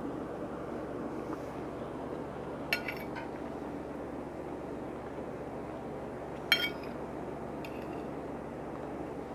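Cutlery clinking against a dish while eating, with two sharp clinks about three seconds and six and a half seconds in. A steady low background hum runs underneath.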